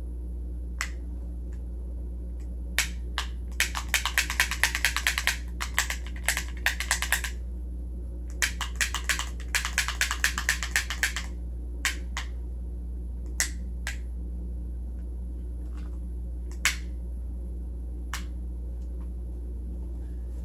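Sharp plastic clicks from a small toy revolver being worked: scattered single clicks, with two runs of rapid clicking in the first half. A steady low hum runs underneath.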